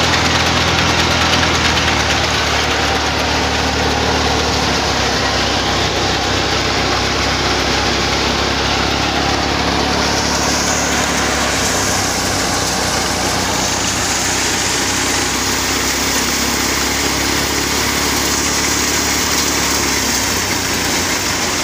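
Tractor-powered thresher running steadily while threshing mustard: a loud, unbroken machine noise over the tractor engine running under load. From about halfway through, a higher rushing hiss joins in as chaff is blown out of the thresher's outlet.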